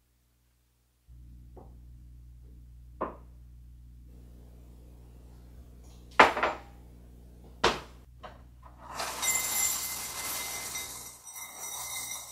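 A few single knocks and thuds from handling in a kitchen, the loudest about six seconds in, over a steady low hum. Near the end, dry cereal rings pour from the box into a ceramic bowl as a rattling rush lasting about three seconds.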